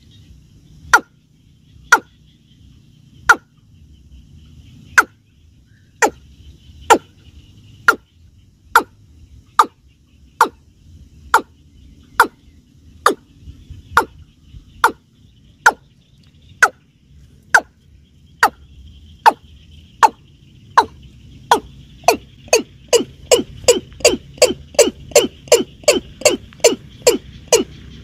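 Watercock calling: a series of short, sharp, hollow notes, each dropping quickly in pitch, at about one a second, speeding up to about three a second near the end.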